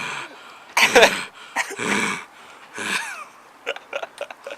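Short breathy vocal sounds from a person, three bursts about a second apart, the first the loudest and one near the middle falling in pitch, followed by a few faint clicks.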